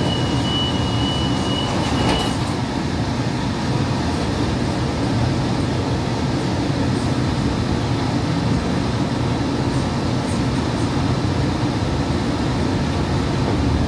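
Interior of a light rail car: a steady rumble and hum as the train pulls away and runs along the track. A high steady tone sounds for the first two seconds, then stops.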